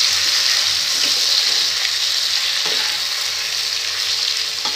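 Onions, capsicum and tomatoes frying in oil with a steady sizzle while a spatula stirs them around the pan, with a few faint scrapes.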